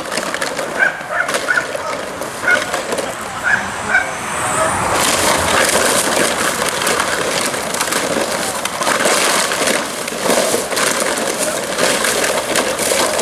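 Plastic streamers rustling and crackling as a decoy shakes the bundle and a dog bites and tugs at it. The sound gets louder and denser from about five seconds in. A few short high chirps come in the first few seconds.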